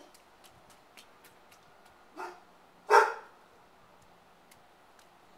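A dog barking twice, a short bark a bit over two seconds in and a louder one about a second later.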